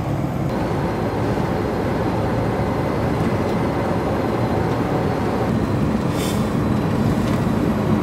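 Steady low road and engine noise heard inside the cab of a moving truck-based camper van.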